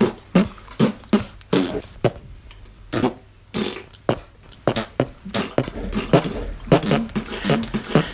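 Homemade mouth sound effects: an uneven run of many short pops and clicks, coming faster and closer together in the second half.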